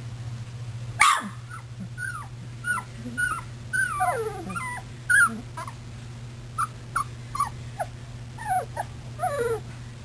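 Golden retriever puppies whimpering and yipping: a string of short, high calls, each falling in pitch, starting about a second in. A steady low hum runs underneath.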